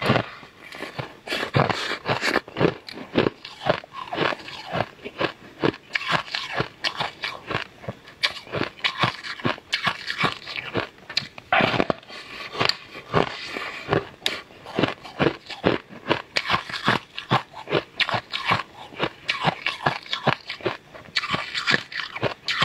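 Close-miked crunching bites and chewing of a hard, sugar-coated purple sweet slab. Rapid crackling snaps come one after another as the crust breaks in the mouth.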